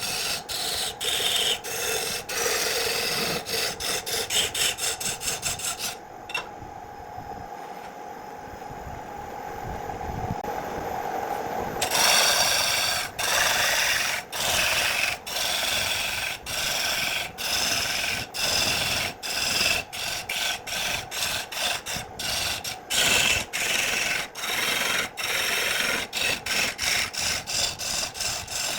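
Quick back-and-forth rubbing strokes of a hand tool on wood, two or three a second. For about six seconds in the middle the strokes give way to a steadier, duller rubbing with a faint hum.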